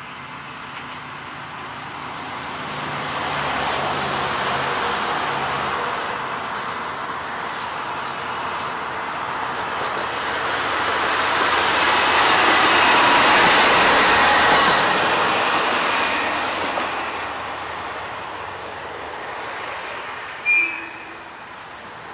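A single-car diesel railcar passing by: its engine and rolling wheels build up, are loudest about two-thirds of the way through, then fade away. A brief, sharp tone sounds near the end.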